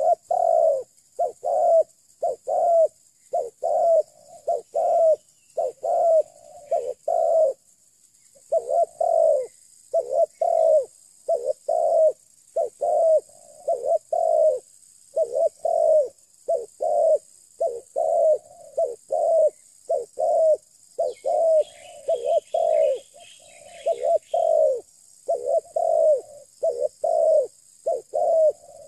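Spotted dove (terkukur) cooing close by: a nonstop run of short low coos, grouped into quick phrases of two or three notes. Partway through, a smaller bird twitters briefly in the background.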